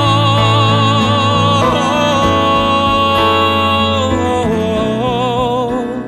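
A male singer performing live, holding long notes with vibrato over instrumental accompaniment with a steady low bass.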